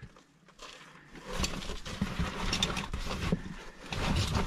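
A caver's oversuit and boots scraping and rustling against rock as he squeezes through a tight passage, with scattered scuffs and clicks, starting about a second and a half in.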